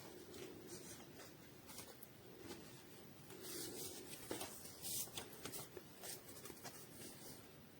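Faint rustling and rubbing with light clicks and scrapes, busiest about halfway through.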